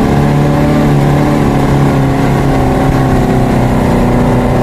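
Car engine running as the car drives along, heard from inside the cabin. The engine note dips slightly midway and climbs again.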